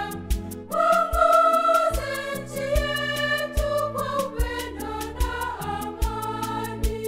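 Church choir singing a Swahili gospel song in held, sustained notes over an instrumental backing with a steady drum beat. The bass and drums drop out briefly just before the voices come in strongly about a second in.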